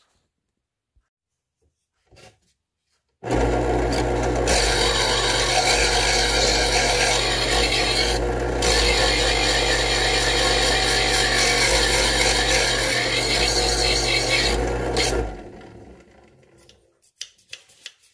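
Electric knife sharpener switched on about three seconds in: its motor hums while a scissor blade grinds against the sharpening wheels in the slot for about twelve seconds, with two short breaks in the grinding, then the motor winds down.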